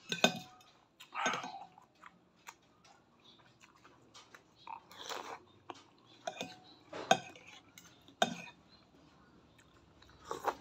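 Stainless spoon and fork clinking a few times against a ceramic bowl of noodle soup, with slurping and chewing between the clinks.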